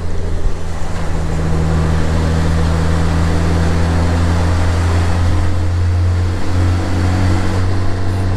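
A 2016 Honda Gold Wing's flat-six engine running at a steady cruise, a low even drone under constant wind and road noise.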